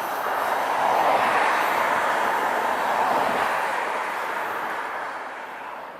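A passing train's wheels running on the rails, a steady rushing noise that fades away over the last couple of seconds as the train moves off.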